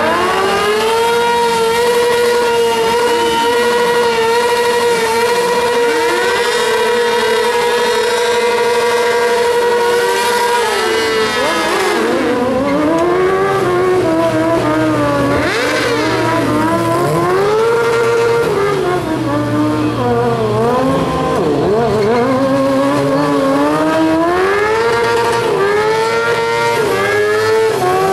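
Sport motorcycle engine held at a steady high rev while the rear tyre spins in a smoky burnout. After about ten seconds the revs rise and fall again and again as the bike spins.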